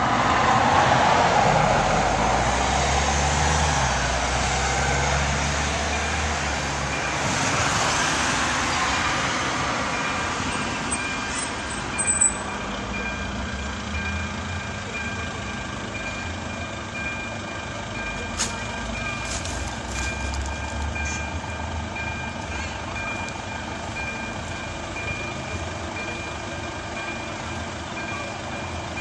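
Road vehicles driving past over the crossing. About twelve seconds in, the level crossing's electronic ZV-02 warning bell starts: a high electronic ding repeating at an even pace, warning of an approaching train.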